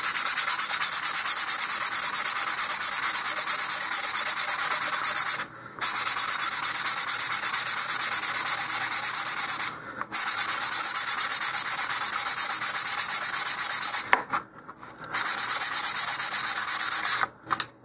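150-grit sandpaper rubbed by hand in quick back-and-forth strokes over a glossy rocket motor-mount tube, scuffing off the gloss so epoxy will hold. The sanding is steady, stopping briefly four times.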